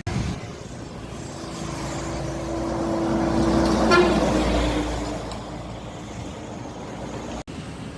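A passing bus gives a long, steady horn blast of about three seconds as a greeting. The bus's engine and tyre noise swell as it goes by, loudest about four seconds in, then fade.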